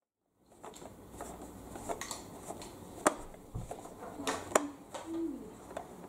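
Screwdriver turning the small screw in the plastic battery cover on the underside of a toy Henry vacuum cleaner: scattered sharp clicks and scrapes of the metal tip in the screw head and against the hollow plastic body.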